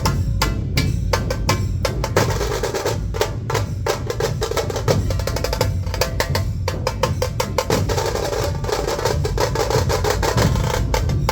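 Dhol-tasha ensemble playing: large dhol drums beating low under fast, sharp stick strokes on tasha drums, in a dense rhythm without a break.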